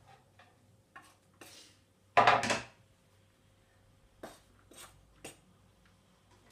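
Kitchen knife on a wooden cutting board: a few light taps, then a loud scrape of about half a second a little after two seconds in. This is followed by three short sharp knocks about half a second apart as the board is knocked against the rim of a plastic mixing bowl to tip chopped carrot in.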